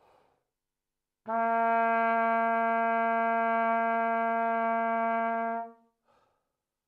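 Fürst-Pless hunting horn playing one long, steady note, the lower C, its lowest of five natural notes. The note starts about a second in and is held for about four and a half seconds before stopping.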